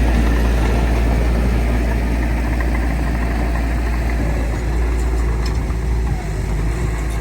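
Heavy diesel earthmoving machinery, a bulldozer or dump truck, running steadily with a deep engine drone; it eases off a little near the end.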